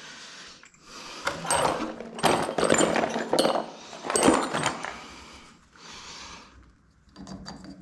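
Rustling of a cloth drop sheet with scattered clicks and knocks as tools and a tap cartridge are picked up off it; the handling is busiest in the first few seconds and dies down near the end.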